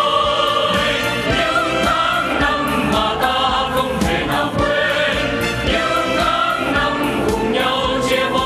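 Mixed-voice vocal group singing a song in chorus over an amplified band backing with drums.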